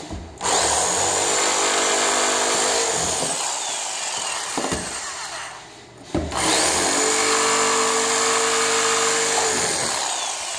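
Corded jigsaw cutting through plywood subfloor: the motor runs steadily while the blade saws, stops briefly about six seconds in, then cuts again and tails off near the end.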